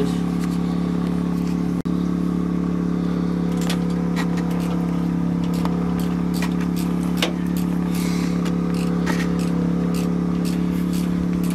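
An engine running at a steady, unchanging speed gives a constant drone. Over it come scattered light rustles and ticks of a paper towel being handled and pierced with a pen to hold small bolts.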